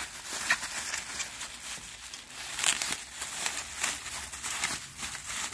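Plastic bubble wrap being pulled off and crumpled in the hands: an irregular run of crinkling and crackling with sharper crackles here and there.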